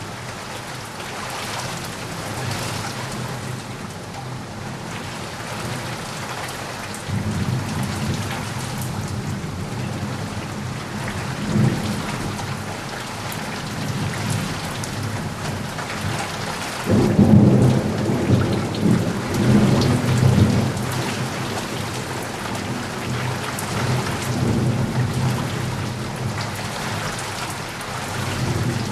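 Steady heavy rain falling, with rolling thunder: a low rumble comes in about a quarter of the way through and a louder roll of thunder follows past the middle.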